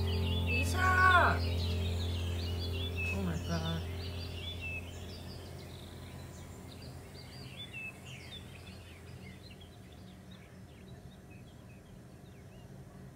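Many small birds chirping in quick, scattered calls over a steady low hum that fades gradually. A short falling voice-like call sounds about a second in.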